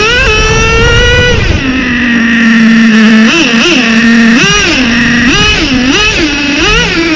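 Traxxas T-Maxx 3.3's TRX 3.3 two-stroke nitro engine revving. The pitch climbs just after the start and holds for about a second and a half, then drops back to a steady lower pitch. From about three seconds in, the throttle is blipped up and down about eight times in quick succession.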